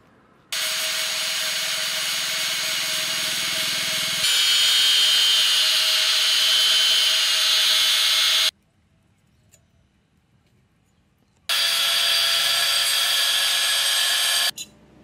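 Power grinder grinding steel in two runs, the first about eight seconds long and the second about three, each starting and stopping sharply. The first run gets louder about four seconds in.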